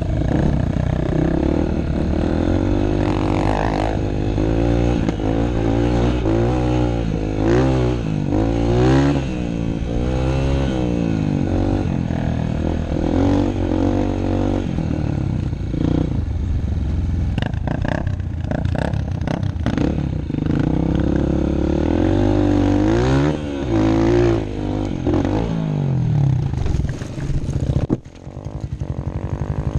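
Honda CRF150F dirt bike's four-stroke single-cylinder engine revving up and down over and over as it is ridden over rough grass, with clattering knocks from the bike bouncing. Near the end the engine note drops away suddenly as the bike tips over into the brush.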